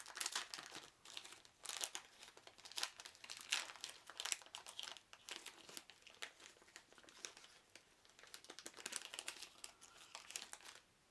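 Foil booster pack crinkling and tearing as it is pulled open by hand, in irregular crackles.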